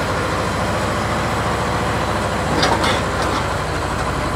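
Small narrow-gauge diesel locomotive's engine running steadily, a low rhythmic rumble. A short knocking noise about two and a half seconds in.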